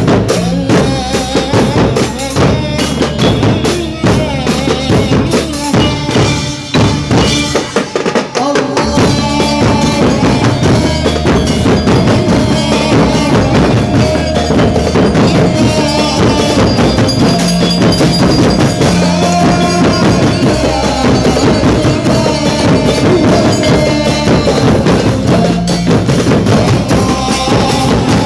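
Loud music with a steady drum beat, drum kit and bass drum driving it, with a short break about eight seconds in.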